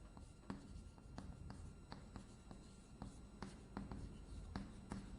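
Faint taps and scrapes of someone writing on a board, irregular strokes about two a second.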